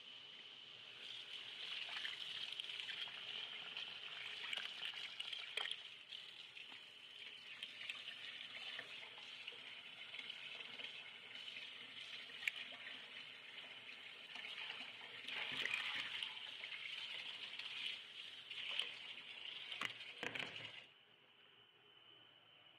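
Tap water running onto eggplant slices in a plastic colander in a stainless-steel sink, with scattered knocks of the slices and colander. The water cuts off sharply near the end.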